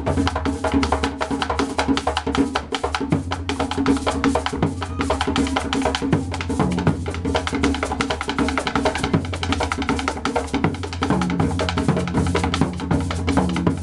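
Background music with a steady, fast drum beat and a bass line.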